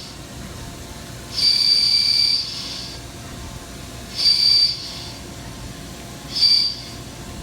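Milling cutter squealing in high-pitched bursts as it cuts a brake hat: three bursts, each shorter than the last, over a steady low machine hum.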